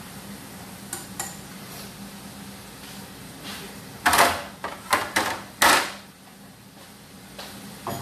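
Kitchen pots and dishes clattering in three short, loud bursts about four to six seconds in, over a steady low hum.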